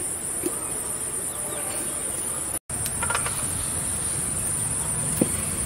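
Steady, high-pitched chirring of insects, a continuous drone broken only by a brief dropout about two and a half seconds in, with a few faint ticks over it.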